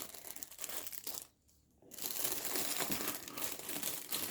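Gift wrapping being crumpled and torn open by hand, crinkling steadily, with a short pause about a second in.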